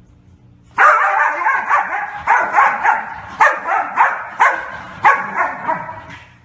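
A dog barking repeatedly and loudly, starting about a second in, a bark roughly every half second, then stopping shortly before the end.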